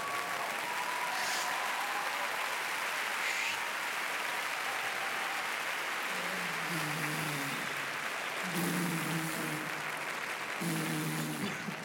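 Audience applauding steadily. From about halfway through, short groups of low musical notes sound over the clapping.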